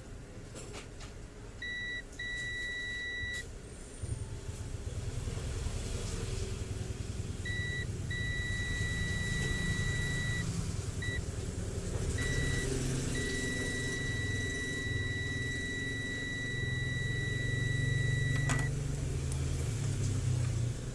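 Multimeter continuity beeper sounding as probes touch the motherboard's DC-in supply traces: a steady high-pitched beep that comes and goes, some short blips and some held for a second or several seconds, the longest over five seconds near the end. A low rumble sits underneath from about four seconds in.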